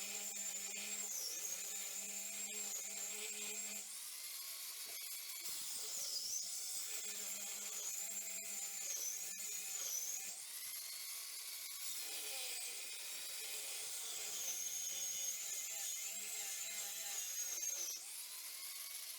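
High-speed power cutting tool whining steadily, its pitch sagging briefly now and then as it bites into seized, rusted bolts.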